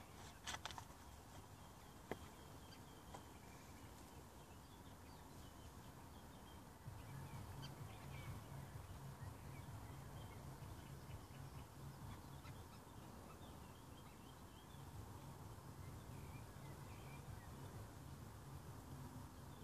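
Faint ambience with distant small birds chirping now and then, a few soft clicks near the start, and a low rumble that comes in about seven seconds in.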